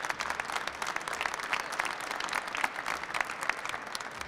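A small group of people applauding: steady hand clapping that starts thinning out near the end.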